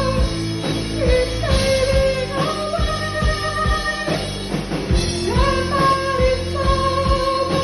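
A rock band playing live: steady drum hits and a deep bass under a melody of long held notes.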